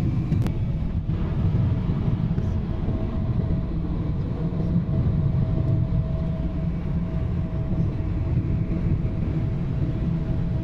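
Airliner cabin noise on approach with the flaps extended: a steady low rumble of engines and rushing air. A faint steady whine joins about half a second in.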